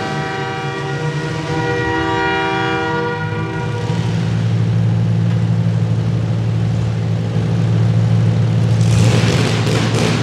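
A loud horn sounds a chord of several notes for about four seconds, then a steady low drone of idling engines takes over. Near the end, louder engine and crash noise rises again.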